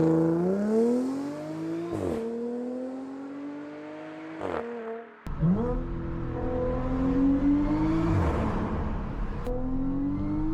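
Supercharged Audi V6 engine accelerating hard through the gears, its revs climbing and then dropping sharply at each of several upshifts.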